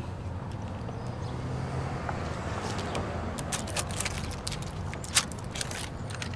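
Low steady traffic hum, then from about three and a half seconds in a run of sharp crinkles and clicks, one louder than the rest, as a paper bag is handled and rummaged through.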